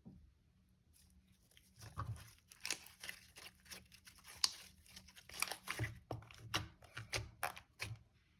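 Store-bought slime being squeezed and stretched by hand, giving off irregular crackles and sticky pops from about two seconds in.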